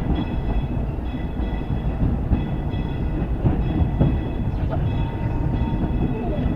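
Disneyland Railroad steam train running along the track, heard from aboard a passenger car: a steady low rumble of wheels and cars, with faint high tones coming and going and occasional light knocks.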